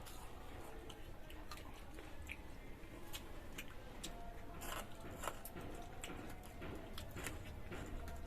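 Close-up eating sounds: scattered crisp crunches and wet mouth clicks of someone biting into and chewing phuchka (pani puri).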